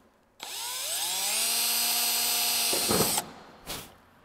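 Cordless drill spinning up with a rising whine, then running steadily as it bores a rivet hole through thin aluminium wing skin for a nut plate, stopping about three seconds in. A couple of short knocks follow as it stops and is lifted away.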